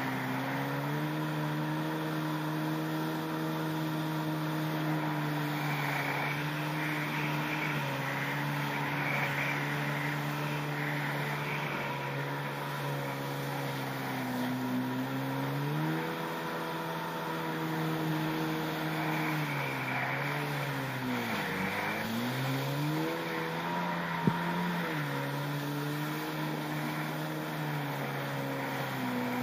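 Yamaha SuperJet stand-up jet ski's two-stroke engine running at speed, with water spray hissing underneath. The revs dip and come back about halfway through, fall steeply and climb back a few seconds later, and a single sharp tap sounds about three-quarters of the way in.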